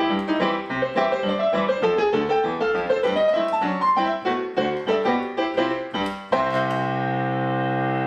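Background music: a quick keyboard melody of short piano-like notes, then about six seconds in, one chord held steadily.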